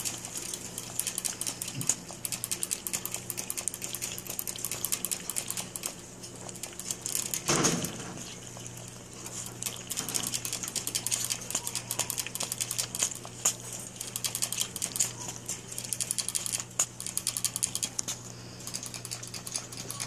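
Rapid, irregular clicking and ticking of a cage water bottle's metal sipper tube as a kinkajou licks and drinks from it, with one louder knock about seven and a half seconds in.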